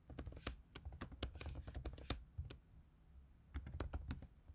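Typing on a computer keyboard: a run of irregular key clicks, with a short pause a little past halfway before the clicking resumes.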